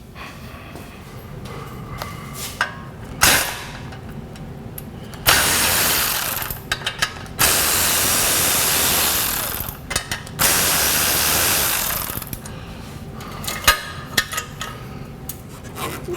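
Hand ratchet clicking on a nut, then a power tool running in three long bursts between about five and twelve seconds in, with more clicks and knocks near the end. The work is loosening an exhaust clamp and hanger under a Jeep.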